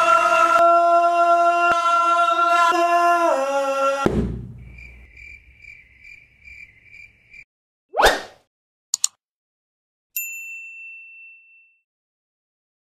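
Men's voices holding a sung chord that steps down and cuts off about four seconds in. Then short on-screen sound effects follow: a soft beep pulsing about three times a second, a quick whoosh, two clicks, and a bell-like ding that fades.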